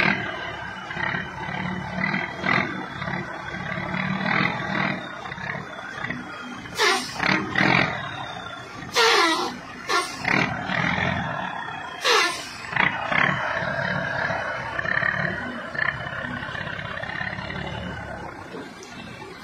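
Engine of a heavily loaded chiva bus running under load on a muddy road, with several loud surges in the middle.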